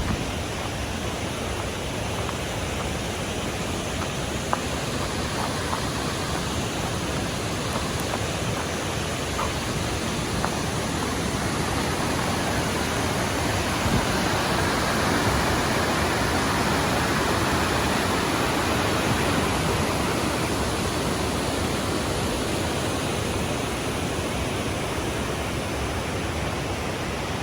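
Rushing water of a mountain creek cascade: a steady, full hiss that grows somewhat louder partway through, then eases back.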